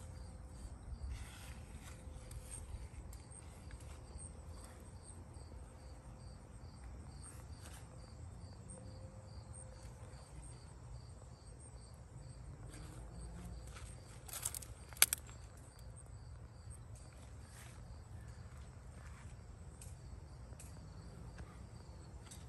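Garden ambience: an insect chirping in a faint, regular high-pitched pulse over a low steady rumble. Two sharp clicks, the loudest sounds, come a little past the middle.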